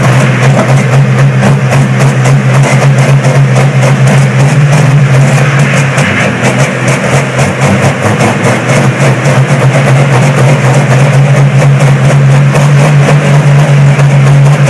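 Cold diesel engines of two John Deere pulling tractors running loud and steady with a deep, even drone.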